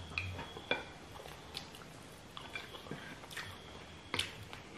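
Chewing and mouth sounds of people eating rice and egusi stew, with a few short, sharp clicks spread through it.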